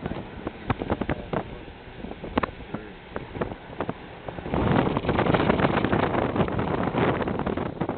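Car driving on an old country road, heard from inside the cabin: road and wind noise with frequent sharp knocks and rattles. The noise gets clearly louder a little past halfway.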